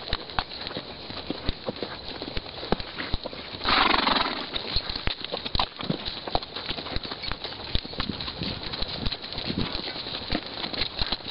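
A horse's hooves clopping on stony desert sand as it walks, in an uneven run of short knocks. About four seconds in comes a brief, louder rush of noise.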